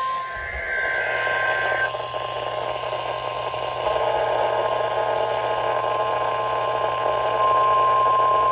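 NOAA Weather Radio 1050 Hz warning alarm tone, sounding as a test: one steady, unbroken high tone received over a hiss of radio static. The static thickens about four seconds in.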